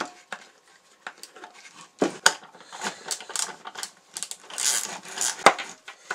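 Irregular clicks, knocks and rubbing as hands work a small metal socket tool at the fittings of a Truma Therme water heater's plastic tank, moving the tank on its mat. There is a sharp knock about two seconds in and another about five and a half seconds in.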